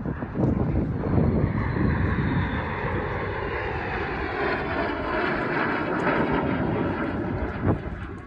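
Two T-33 jet trainers' turbojet engines passing overhead in formation: a steady jet rush with a whine that slowly falls in pitch as they go by.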